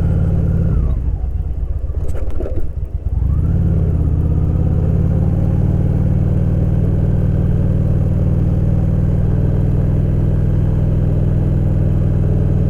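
Motorcycle engine running with a steady low note; about a second in, the note breaks up into an uneven rumble and drops in level for about two seconds, then settles back to a steady run.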